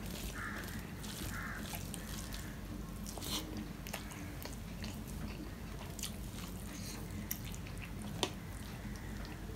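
Eating by hand: wet chewing and mouth smacking on rice and curry, with fingers squishing and mixing the rice on a steel plate. Scattered sharp clicks, the loudest near the end, over a steady low hum.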